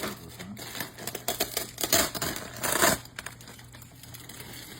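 Rapid clicking and clattering of cooking utensils and a tray being handled, with two louder bursts about two and three seconds in, then quieter.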